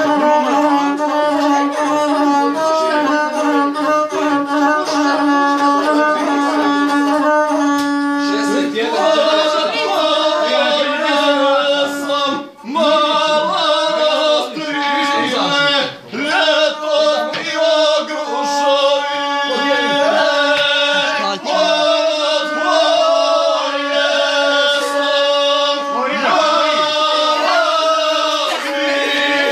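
A Balkan gusle with a skin soundboard, bowed to play a steady, stepping melody. About nine seconds in, a man's singing voice comes in and carries on over the instrument.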